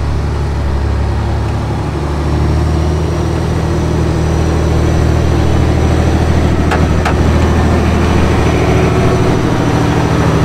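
Alvis Stalwart Mk2 6x6 military truck's turbo diesel engine running steadily as the truck drives slowly past. A thin, steady high whine sits over the low engine note.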